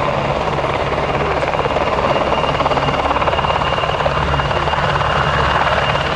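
PZL-Świdnik W-3A Sokol helicopter flying: a steady, loud rapid beat of the main rotor with a thin high whine from its twin turboshaft engines running over it.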